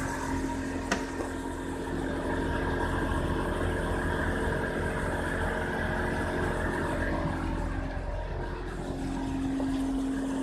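Subaru Outback BP9 on the move with a steady hum from a worn wheel hub bearing over the car's running noise, with a single click about a second in and a slight change in the hum's tone near the end.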